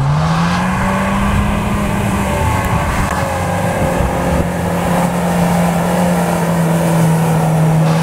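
Small homemade tractor's engine running hard as it drives along a dirt course and passes close by. Its note climbs in the first second, then settles into a steady drone a little lower.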